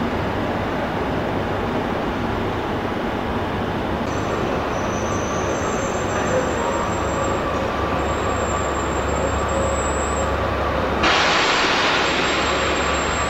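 Passenger train coaches rolling slowly along a station platform with a steady rumble of wheels on rails. Thin, high-pitched squeals join in about four seconds in. About eleven seconds in, a louder hissing rush sets in suddenly and then eases off.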